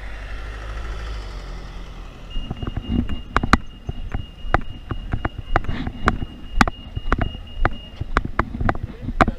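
Road traffic rumbles low for the first couple of seconds. Then footsteps strike the road surface at about two a second, while a steady high electronic tone from the pedestrian crossing signal sounds for about six seconds and cuts off near the end.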